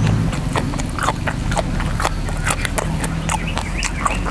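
Close-miked eating: wet chewing and mouth smacks on raw shrimp in spicy sauce, a quick irregular run of clicks.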